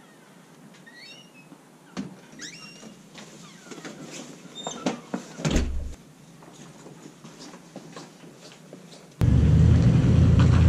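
A door opening and shutting, with a few knocks and clicks and high chirps now and then. About nine seconds in, a loud, steady low rumble starts.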